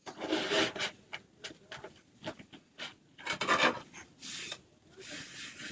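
Uneven rubbing and scraping strokes against a hard surface close to the microphone, mixed with a few clicks and knocks; the loudest strokes come at the start and about three and a half seconds in.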